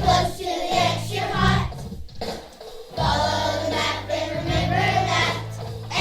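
A group of young children singing a song together over instrumental accompaniment with held low bass notes.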